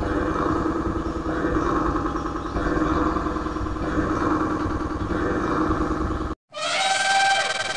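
Many children's songs playing over one another, sped up and heavily distorted into a dense, buzzing mash with a strong low rumble. It cuts out for a moment about six seconds in, then comes back brighter and thinner.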